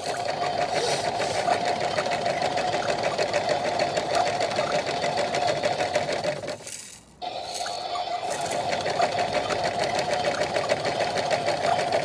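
Small electric motor of a toy washing machine whirring steadily as it turns the drum, stopping for about half a second around the middle and then starting again.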